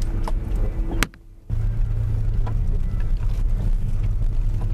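Steady low rumble of a car's engine and tyres heard from inside the cabin while it drives slowly. About a second in there is a sharp click, and the sound drops out for about half a second before the rumble resumes.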